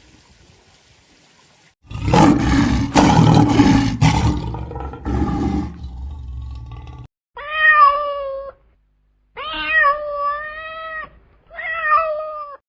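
A loud, rough, noisy animal sound lasting about five seconds, then a cat meowing three times in short, clear, pitched meows.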